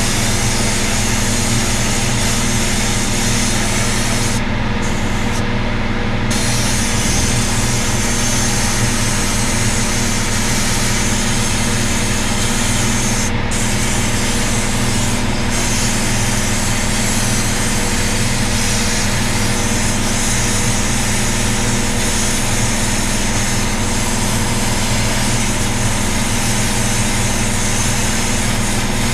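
Sandblaster blasting: a steady hiss of air and grit over a steady machine hum. The hiss cuts out for a moment about four and a half seconds in, again at about six seconds, and once more at about thirteen seconds.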